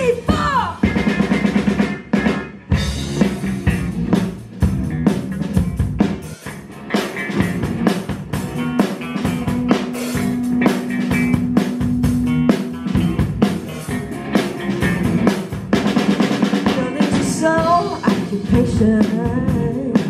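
Live rock band playing an instrumental passage: a drum kit with busy snare and bass drum hits under electric bass and electric guitars, with one long held note around the middle.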